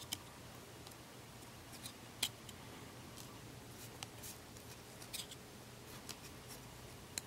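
Trading cards being flipped through by hand, one card at a time: faint, irregular crisp snaps and slides of card stock, about one every second, the loudest a little over two seconds in.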